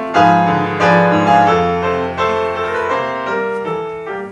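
Piano playing an instrumental interlude between verses of a cabaret song: a run of struck chords and melody notes, each ringing and decaying, growing softer near the end.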